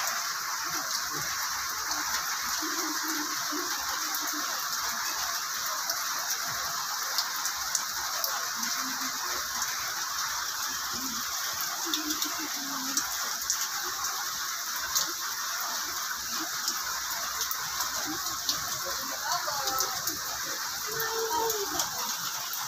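Steady rain falling, with scattered sharp ticks of drops landing close by. Near the end a faint wavering pitched call sounds over the rain.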